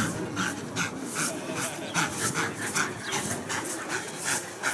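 German shepherd dog panting quickly and evenly, about two to three breaths a second.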